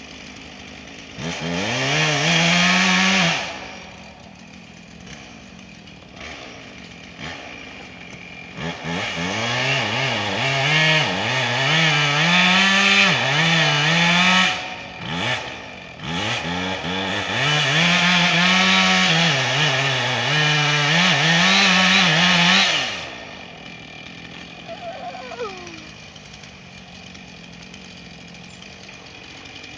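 Husqvarna chainsaw cutting into a tree trunk in three runs, a short one of about two seconds and then two of about six seconds, its pitch dipping and recovering under load. Between and after the runs it drops back to a quiet idle.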